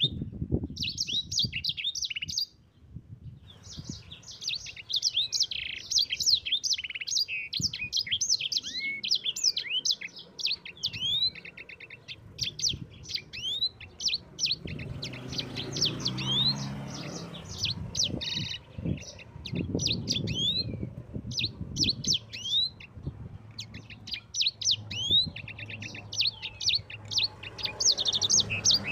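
A sanger songbird singing a long, rapid rolling song of quick chirps and trills, pausing briefly about three seconds in. A low background noise rises under the song in the middle.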